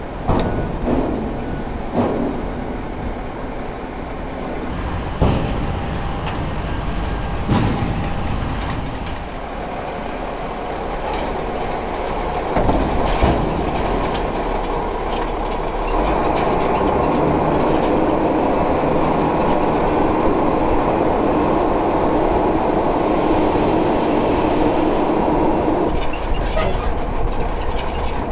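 Heavy vehicle running with a steady rumble and rattling clatter, with several sharp knocks in the first few seconds; the noise grows louder about halfway through and eases off near the end.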